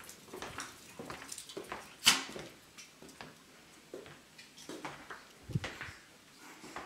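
Scattered soft footsteps, clicks and knocks of someone walking through a small room. A sharp click comes about two seconds in, and a dull thump a little after five seconds.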